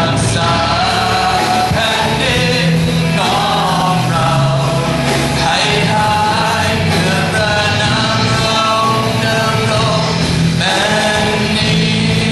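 A man singing a worship song into a microphone over band accompaniment.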